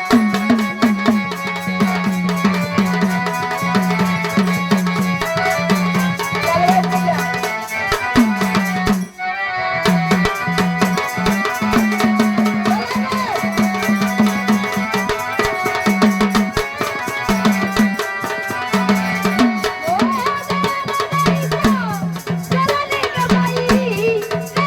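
Gondhal party playing Marathi devotional folk music: a pitched drum beating a repeating pattern with rattling percussion over held melodic notes. The music briefly drops out about nine seconds in, then resumes.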